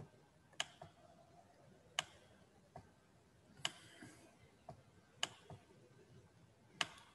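Sharp single clicks at irregular intervals of about a second, over faint room tone: the sound of someone working a computer during a lull in the lesson.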